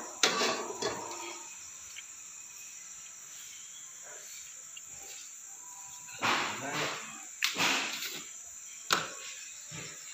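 A few short knocks and clatters of a plastic jar and spoon being handled, loudest between about six and nine seconds in, over a steady high-pitched whine.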